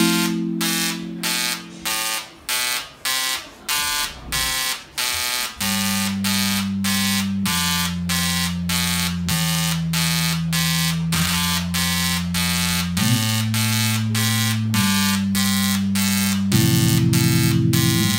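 Tesla coil (DRSSTC) sparking in a steady pulse of short, buzzy pitched tones, about two to three a second, over sustained synthesizer chords that change every couple of seconds.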